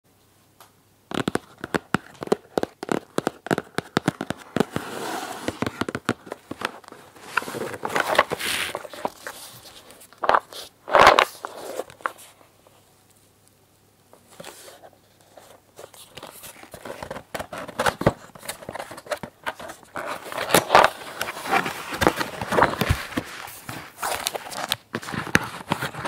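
Fingers and nails tapping, rubbing and scratching on a printed cardboard toy box as it is handled and turned over, in quick clicks and rustles. There is a quiet pause around the middle, then busier handling as the taped end flap is worked at.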